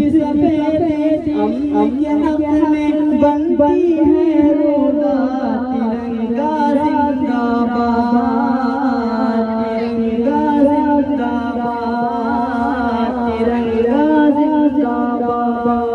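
A group of boys singing a patriotic Urdu/Hindi song (nazm) together, continuous with long held notes.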